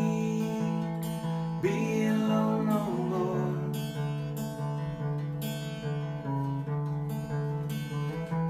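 Acoustic guitar strummed in a steady rhythm, chords ringing between strokes, as an instrumental passage between sung lines of a song.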